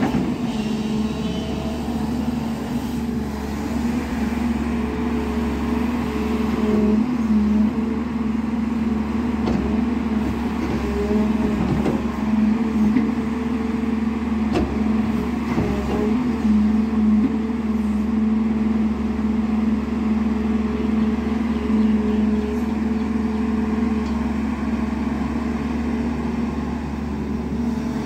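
JCB 205 NXT tracked excavator's diesel engine running steadily under load as the boom swings and the bucket digs and dumps soil. The hum rises and falls a little with the work, with a few faint knocks.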